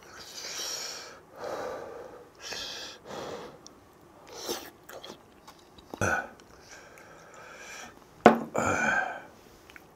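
A man eating hot, spicy fish stew: a few breathy exhalations and slurping, mouth sounds of eating, then a loud throaty grunt about eight seconds in.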